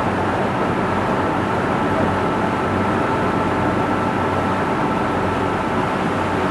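Cruise boat's engine running, a steady drone with a constant hum.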